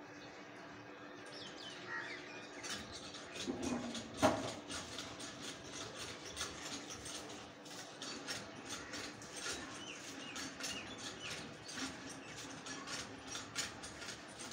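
Small birds chirping, many short chirps in quick succession, with one louder brief sound about four seconds in.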